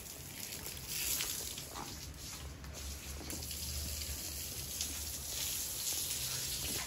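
Water from a garden hose spraying and splashing onto wet dogs and a concrete floor, a steady hiss.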